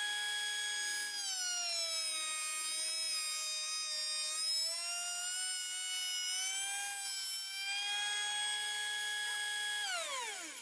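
Makita electric hand planer, mounted upside down as a jointer, whining at full speed. About a second in its pitch drops as a block of wood is fed across the cutter, then slowly climbs back as the pass goes on. Near the end it is switched off and its whine falls steeply as it winds down.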